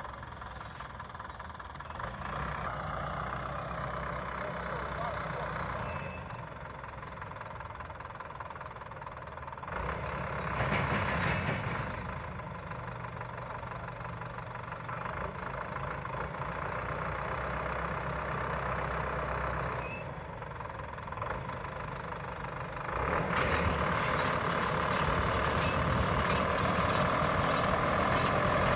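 Engine-driven round baler running steadily under work. The machine noise swells briefly about a third of the way in and grows louder again over the last few seconds.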